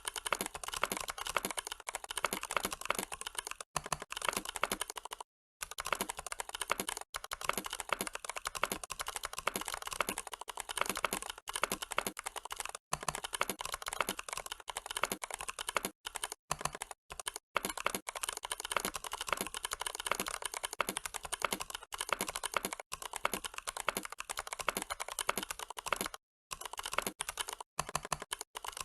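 Computer keyboard typed on quickly and continuously, about 90 words a minute, a dense run of key clicks broken by a few brief pauses.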